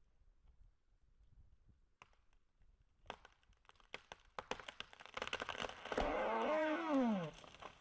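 A felled tree's wood cracking and snapping as it gives way, the snaps coming faster and louder, then a creaking groan falling in pitch as the trunk tips over.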